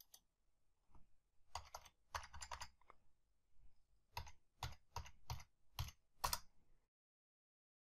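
Faint computer keyboard keystrokes, a dozen or so separate taps, typing a number into a form field. They stop shortly before the end.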